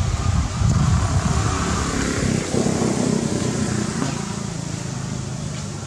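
A motor vehicle's engine running close by, loudest in the first half and fading toward the end.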